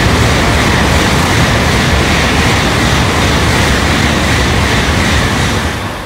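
Shinkansen bullet train passing through a station at speed without stopping: a loud, steady rush of air and wheel noise that fades away near the end.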